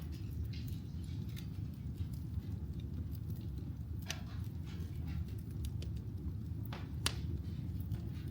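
Wood fire burning in a fireplace: a steady low rumble with scattered crackles, and two louder pops about four and seven seconds in.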